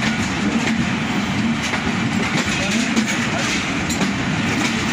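Pakistan Railways passenger coaches of the Awaam Express rolling along the track, heard from the moving train: a steady rumble of wheels on rail with scattered clicks from the joints.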